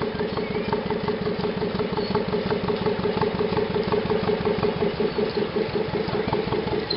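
Narrowboat diesel engine running steadily at low speed as the boat passes, a held hum with a fine, even chug.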